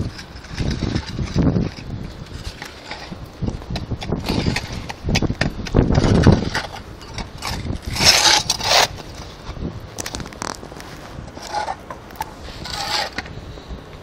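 Gusts of blizzard wind buffeting the microphone, with a couple of short scraping noises past the middle and near the end.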